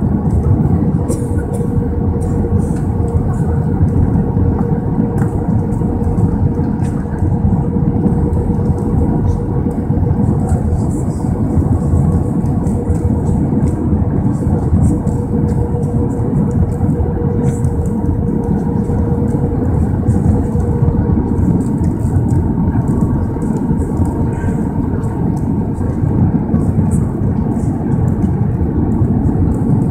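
Airbus A320 cabin noise on final approach, heard from a seat over the wing: a loud, steady rush of the jet engines and airflow, with a thin steady whine that fades out about twenty seconds in.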